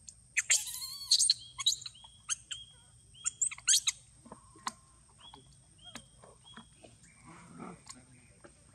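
Shrill, high-pitched squeaks and chirps from macaques, a dense loud flurry in the first four seconds, then sparser short single chirps.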